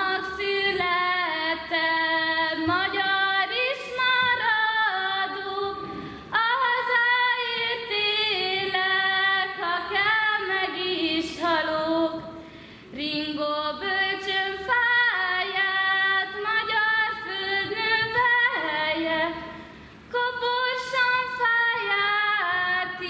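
A young woman singing solo and unaccompanied, in sustained phrases of about six to seven seconds with short pauses for breath between them.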